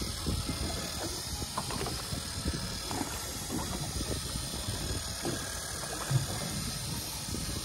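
Deep-sea fishing reel being cranked by hand, its gears clicking irregularly as the line is wound up over the last few tens of metres, over a steady hiss of wind and water.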